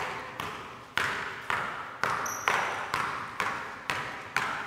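Basketball dribbled steadily on a hardwood gym floor, about two bounces a second, each bounce echoing in the large hall. A brief high squeak sounds about two seconds in.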